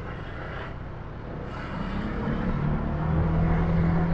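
Street traffic noise, then a motor vehicle's engine running close by. Its steady low hum grows louder from about halfway through.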